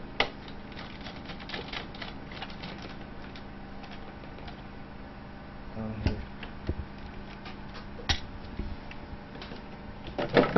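Small clicks and light taps of a screwdriver turning screws into a laptop's plastic case, with a few louder single knocks later as the case is handled on the bench.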